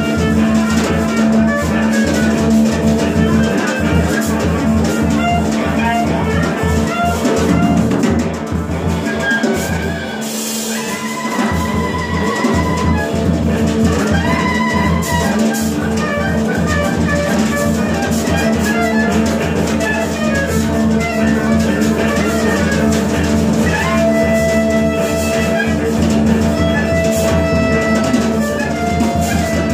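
Live music from electric guitar through an amplifier, drum kit and a wind instrument playing together, with long held notes from the wind instrument a little before halfway and again near the end.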